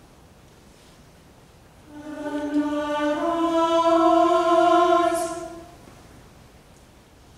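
Unaccompanied choir voices hold one sung note for about four seconds, stepping slightly up in pitch near the start and swelling before fading. A short hissed consonant comes near its end, and the note is framed by quiet church room sound.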